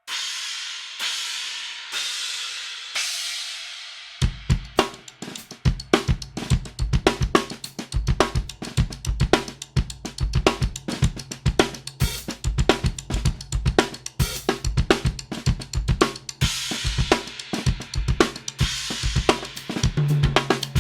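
Istanbul Mehmet X-Ray crash cymbal struck four times about a second apart, each hit ringing out and fading. From about four seconds in, a full drum kit groove of kick, snare and hi-hat follows, with the crash played as accents.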